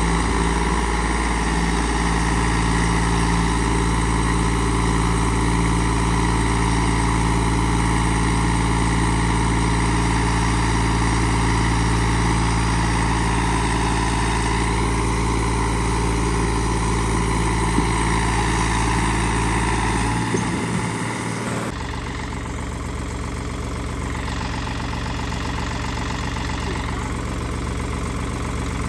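Eicher 368 tractor's diesel engine running steadily under heavy load as it strains to haul a sand-loaded trailer that is stuck in soft ground, hard enough to lift the front wheels. A little over two-thirds of the way in it drops to a quieter, lower run.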